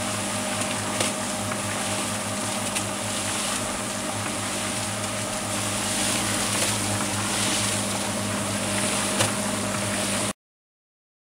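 Concrete mixer running with a sand and cement mix churning in its turning drum: a steady motor hum over the rushing of the mix, with a few sharp knocks. It stops suddenly about ten seconds in.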